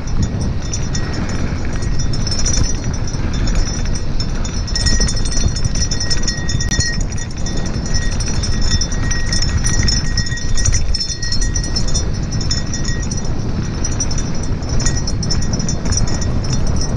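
Mountain bike coasting fast down a dirt road: wind buffeting the camera microphone over the tyres crunching on dirt and the bike rattling on the rough surface. A thin high tone comes and goes in the middle.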